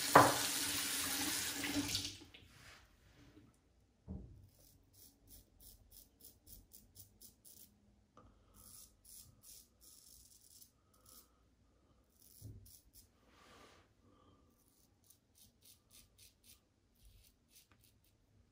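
A tap runs into a sink for about two seconds, with a sharp knock just after it begins, then shuts off. After that come runs of faint, quick, repeated scraping strokes of a stainless steel safety razor across stubble in a touch-up pass, with a soft knock now and then.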